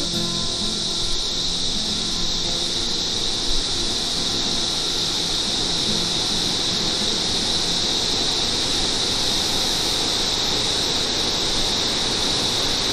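Steady, high-pitched insect chorus over the even rush of a waterfall.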